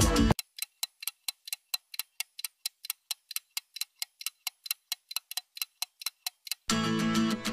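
Clock-like ticking sound effect, crisp and even at about four ticks a second, in place of the background music, which comes back near the end.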